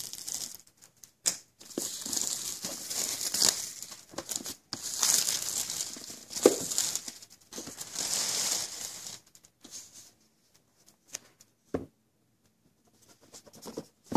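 Clear plastic shrink wrap being torn and crumpled off a new iPad Air box, in loud crinkling bursts for about nine seconds. After that come a few light taps and a knock as the cardboard box is handled.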